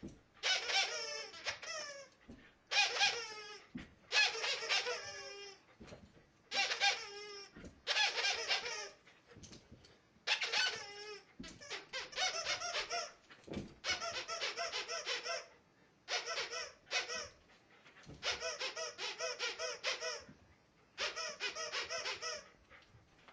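Squeaky plush dog toy squeezed over and over, giving bursts of high squeaks about a second long with short gaps between them, some bursts a quick run of squeaks.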